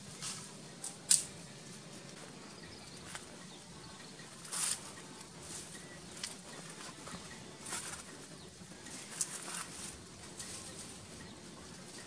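Irregular soft crunches and rustles of footsteps on dry, leaf-strewn ground, with a sharper click about a second in.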